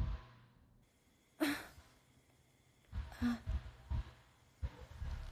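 Two breathy sighs, about a second and a half and about three seconds in, followed by low soft thumps near the end.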